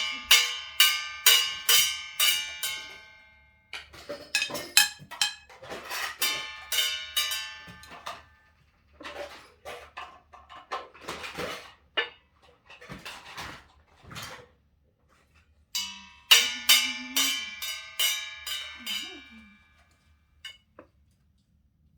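Toy drum set struck with a stick by a toddler: quick runs of ringing hits, about three a second, in four bursts with short pauses between them. A child's short vocal sound comes in during the last burst.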